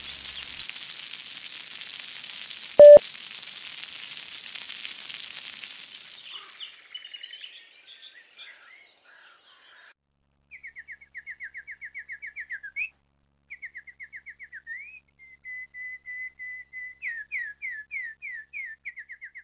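Water splashing with a steady hiss that fades out over the first several seconds, cut about three seconds in by one short, loud beep. From about ten seconds in, a bird sings rapid trills of short falling notes, phrase after phrase.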